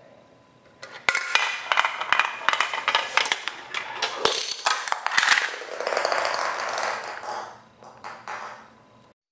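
Steel ball rolling and clattering along plastic toy track pieces: a quick run of clicks and knocks for a few seconds, then a smoother rolling sound that fades out, with a few last faint clicks near the end.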